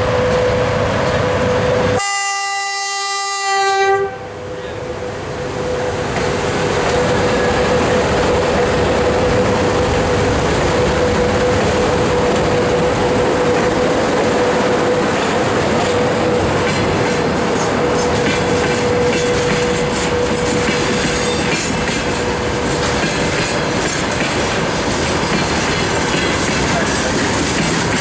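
VL80S electric locomotive hauling a freight train past at close range: one horn blast of about two seconds, starting about two seconds in, then the steady rumble of the locomotive and tank cars rolling by, with a steady hum under it and wheels clacking over rail joints in the later part.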